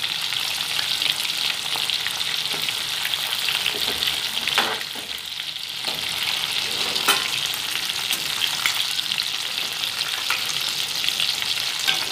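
Spice- and cornflour-coated catla fish pieces frying in hot oil in a steel pan, turned to crisp the second side: a steady crackling sizzle. A perforated steel spatula clicks against the pan a couple of times, and the sizzle dips briefly about five seconds in.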